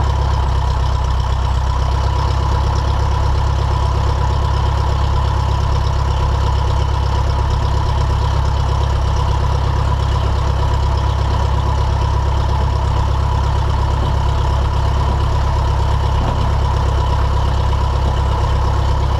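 Piper Super Cub's engine and propeller running steadily at low taxi power, heard close from a camera on the airframe: an even low drone with a thin high tone above it.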